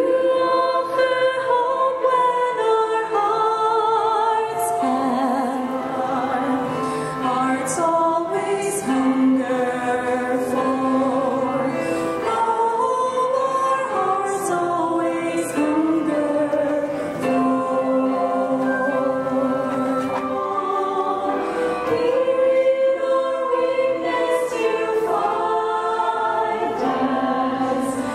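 A women's vocal ensemble singing in harmony into microphones, several voices holding long notes together with vibrato.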